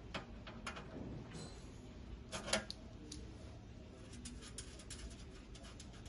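Pliers and fingers working the plastic cable gland nut on a stainless steel griddle housing: scattered small clicks and ticks, with a louder cluster about two and a half seconds in.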